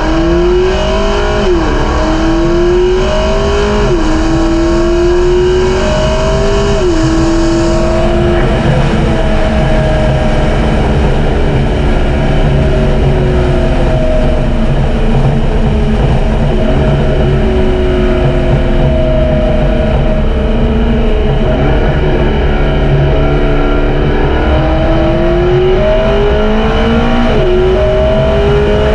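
2012 McLaren MP4-12C's twin-turbo 3.8-litre V8 with the factory sport exhaust, accelerating with the revs climbing and dropping at three quick upshifts in the first eight seconds. The revs then sink slowly for a long stretch before the engine pulls up through the gears again near the end.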